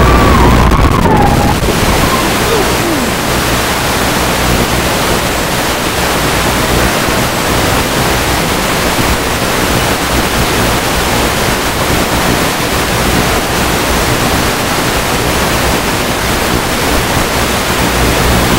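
Loud, steady static hiss from the analog FPV video link, sounding as the quadcopter's signal breaks up. A wavering high whine cuts out about a second and a half in, and a short tone slides downward just before the hiss settles.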